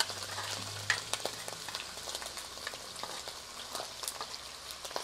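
Chopped beef steak sizzling as it is tipped into hot oil in a clay cazuela, with scattered sharp pops and crackles, one louder about a second in.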